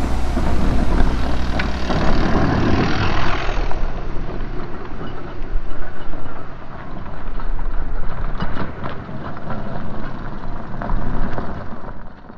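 Downhill mountain bikes rolling past on a dirt forest trail: knobby tyres crunching over the dirt with the rattle and clatter of the bikes.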